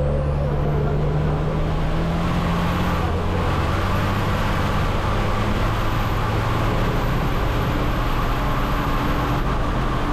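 Racing truck's diesel engine running hard on the circuit, loud and steady, with the engine note shifting about three seconds in.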